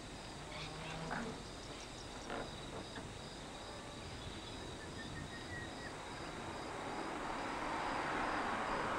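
Insects chirping in a steady, evenly pulsing high tone over quiet outdoor ambience, with a few faint clicks early on. A rushing noise swells up over the last few seconds.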